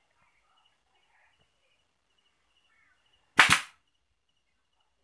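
Pneumatic air stapler firing once about three and a half seconds in: a single sharp double snap as it drives a staple through the grille cloth into the wooden frame.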